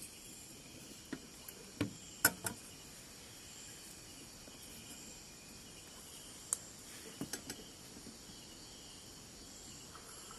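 Insects chirring steadily in a forest at night, with a few sharp clicks and knocks from nearby handling, the loudest a little over two seconds in and another cluster around seven seconds.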